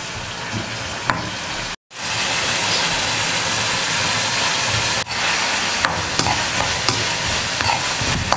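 Cut lemons sizzling as they fry in hot coconut oil, with a metal spoon stirring them and now and then clicking and scraping on the pan. The sound drops out for a moment just before two seconds in, then the sizzling comes back louder.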